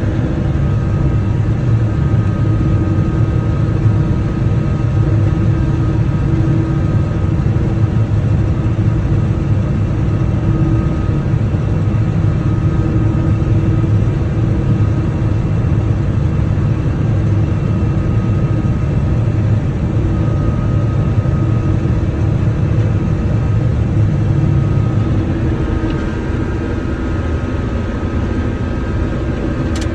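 John Deere 9500 combine running steadily while harvesting corn: a constant engine and machinery drone with a steady whine over it.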